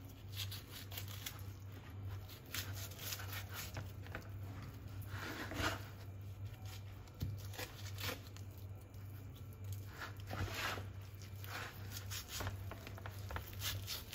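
Kitchen knife slicing and pulling through raw tuna flesh during filleting: irregular soft tearing and scraping strokes, over a steady low hum.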